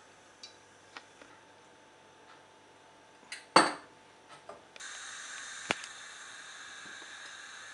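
Light clinks of a spoon and glass bowl against a nonstick pan, the loudest a sharp knock about three and a half seconds in. From about five seconds in a steady hiss sets in and holds.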